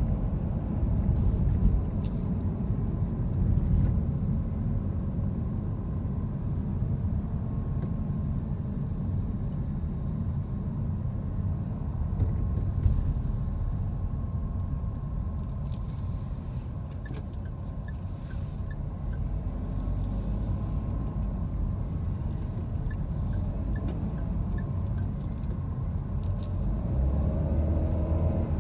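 Steady low rumble of a car driving in city traffic: engine and road noise.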